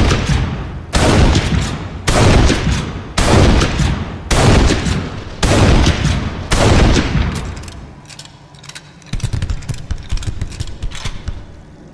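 Winchester Model 1887 lever-action shotgun firing six shots about a second apart, each with a long decaying boom. About two seconds after the last shot fades, a low rattling rumble lasts a couple of seconds.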